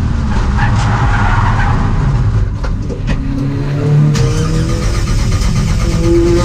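Skoda 130 RS race car heard from inside the cabin: its rear-mounted four-cylinder engine running hard while the tyres skid through a corner, a few sharp knocks around the middle, then the engine revving up with rising pitch in the second half.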